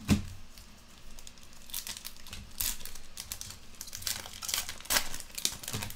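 Foil trading-card pack wrappers crinkling as packs are handled and one is gripped to be opened, with a sharp crackle just after the start and another about five seconds in.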